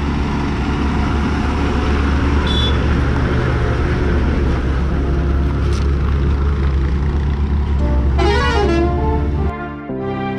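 A heavy road vehicle's engine running close by with a deep steady hum. A horn sounds briefly about eight seconds in, and music takes over just before the end.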